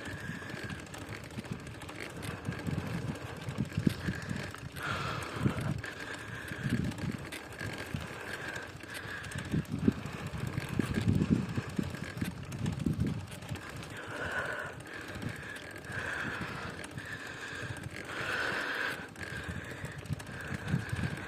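Heavy, congested breathing of a cyclist pedalling uphill, hissing breaths every few seconds over a low rumble from the bicycle on a dirt road and wind on the microphone.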